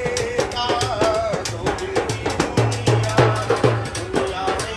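A man singing with a wavering voice while beating a quick, steady rhythm on a small hand drum.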